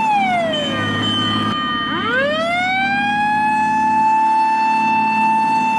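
Japanese fire engine siren wailing: the held high note falls at the start, swoops back up about two seconds in, and holds high again. A low steady drone runs underneath.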